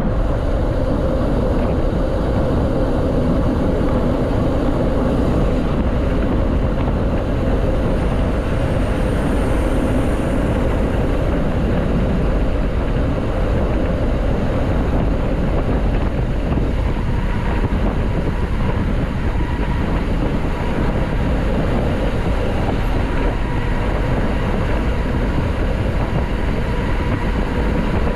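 Steady wind buffeting on the camera microphone, with tyre and road rumble from a mountain bike riding at speed.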